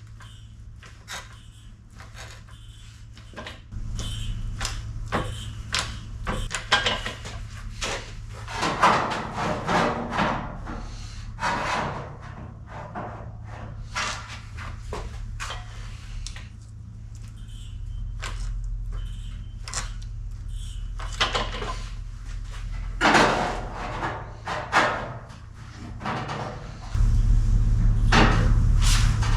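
Steel sheet-metal flange being shrunk by hand: irregular metallic clanks and knocks from the tool working the metal, with a low steady hum underneath that gets louder near the end.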